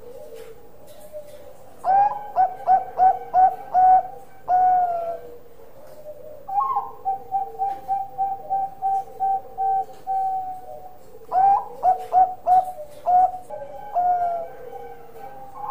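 Zebra dove (perkutut Bangkok) cooing: two bursts of rapid, clipped coos, each closing on a longer drawn-out note, with a steadier run of short, evenly spaced coos between them.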